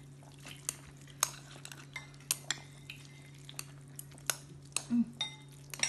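Chopsticks stirring noodles and meatballs in a ceramic bowl, knocking against the bowl in scattered, irregular clicks over a low steady hum.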